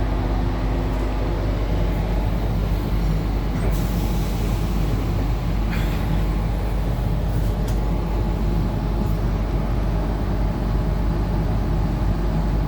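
Inside a Tangara electric multiple unit train running between stations: a steady low rumble of wheels on track with a faint low hum, and a few light clicks.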